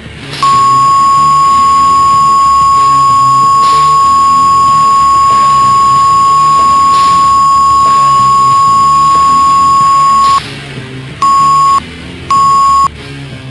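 A loud, steady, single-pitched censor bleep held for about ten seconds, then three short bleeps near the end, over background music.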